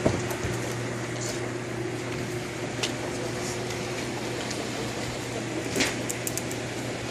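Steady machine hum of a workshop, a low electrical drone over a fan-like hiss, with a few light clicks and knocks, one at the very start and a small cluster near six seconds in.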